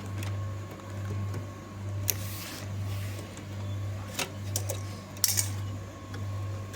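A low machine hum that swells and fades about once a second, with a few light clicks and a brief rustle, typical of hard-disk trays and server parts being handled.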